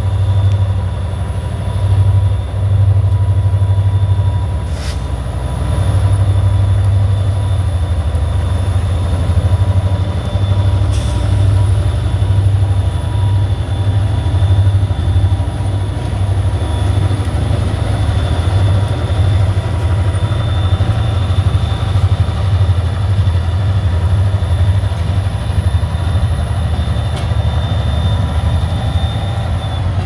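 EMD diesel-electric locomotives, two SD40-3s and an SD38-2, running as they pull a cut of tank cars past, their engines pulsing steadily in a deep low note. A steady high whine sits over the engine sound, with two sharp clicks, one about five seconds in and one about eleven seconds in.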